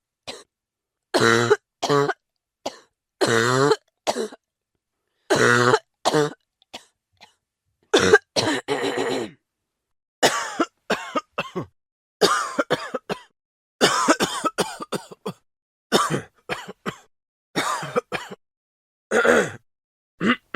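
A person coughing over and over: single coughs and short fits of several in a row, with brief silences between them.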